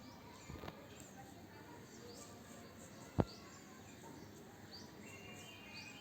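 Birds chirping in the background, with one sharp click about three seconds in, the loudest sound, and a couple of fainter clicks about half a second in.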